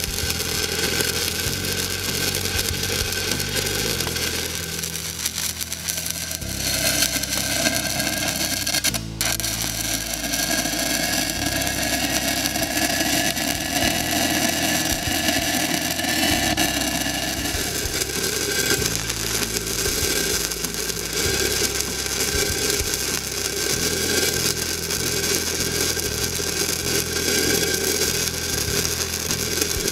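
Shielded metal arc welding with a 1/8-inch E6010 stick electrode at 70 amps DCEP, running the root pass on schedule 40 steel pipe: a steady, crackling arc, with a momentary break about nine seconds in.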